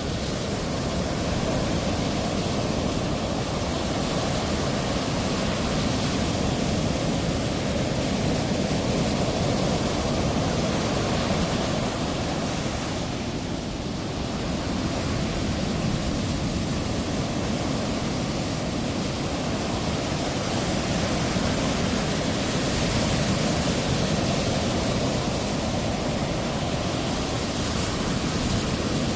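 Steady wash of ocean surf, a continuous rushing noise that swells and eases slowly, with a slight dip about halfway through.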